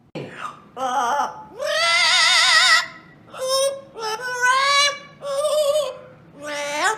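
Pet parrot singing in a warbling, wavering voice, about seven short phrases of held notes with a strong vibrato.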